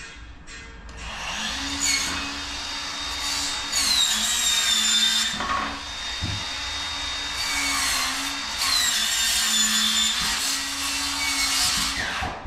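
Power saw cutting wood trim, running in two long runs of about four seconds each; its whine dips in pitch partway through each run as the blade bites in.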